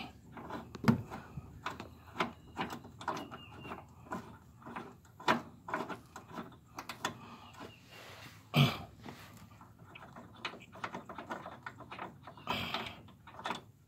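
Irregular clicks, taps and knocks of hand tools and hands on metal as the nut holding the lower control arm of a Mercedes W211 E-Class is loosened. Two louder knocks come about a second in and a little past halfway.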